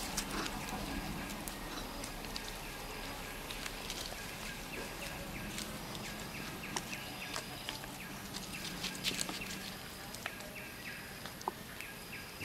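Outdoor ambience with repeated short high-pitched animal calls and scattered light clicks.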